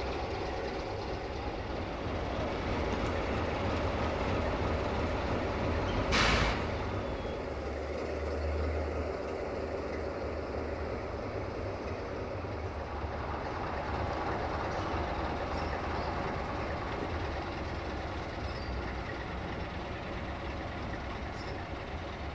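Diesel-electric locomotive of class 060-DA (LDE2100), its Sulzer engine running with a steady low rumble. About six seconds in, a short loud hiss of released air.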